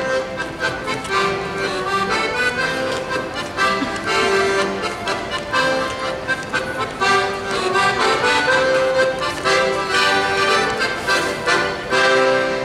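Accordion playing a lively Bavarian folk dance tune, a held melody over steady rhythmic chords, with sharp slaps and stamps on the beat. The tune comes to its close near the end.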